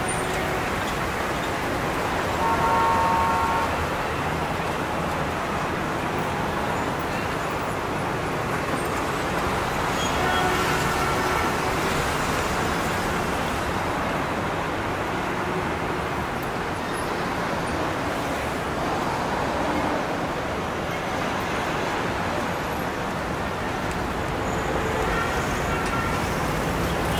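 Steady street traffic noise from passing cars, with a few short tones about three seconds in, about ten seconds in and near the end.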